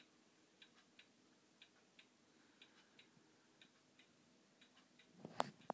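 Quiet ticking of a clock, an even tick-tock of about two ticks a second, in an otherwise near-silent room.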